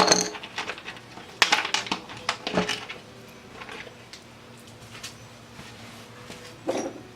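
Hard plastic clicks and knocks as a car door's armrest and handle trim piece is handled and turned over, with a dense cluster of them about one and a half to two and a half seconds in.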